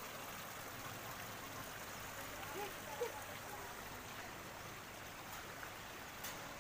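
Faint, steady rush of running water, with a couple of faint brief sounds about three seconds in.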